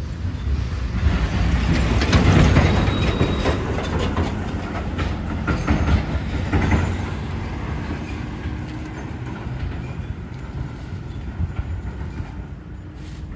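A heavy vehicle passing close by on the road: a loud rumble with tyre and road noise that swells about two seconds in and slowly fades over the second half.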